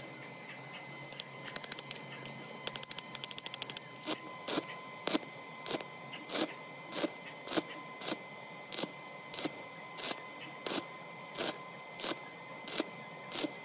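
Stick (arc) welding on the teeth of a broken metal gear, building the worn teeth back up with weld: the arc is struck in short crackling bursts about every half second, with quicker runs of rapid crackles near the start.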